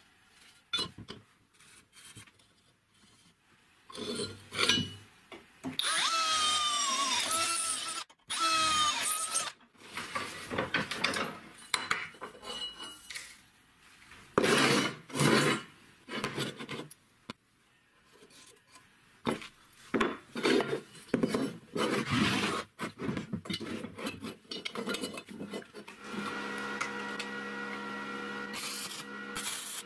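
Steel parts being handled, scraped and rubbed in a metal workshop: a run of scrapes and knocks, with a squeal that wavers in pitch a few seconds in. Near the end a steady hum sets in.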